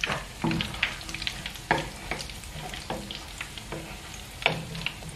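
Panada dough pastries sizzling and crackling as they deep-fry in hot oil in a pan, with frequent sharp pops. A metal spoon stirs and turns them in the oil.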